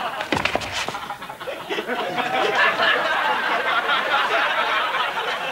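A group of people laughing and chattering together, with a few sharp knocks in the first second.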